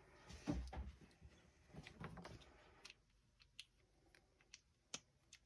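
Faint scattered clicks and light knocks: a few soft knocks in the first couple of seconds, then single sharp ticks about every half second.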